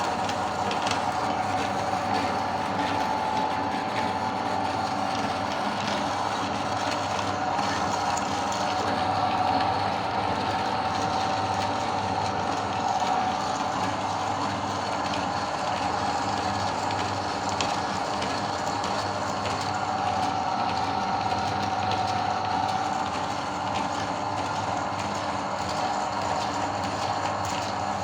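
Electric meat grinder running steadily with a hum of motor and gears, and a dense clicking rattle as Oreo cookies are fed through and ground.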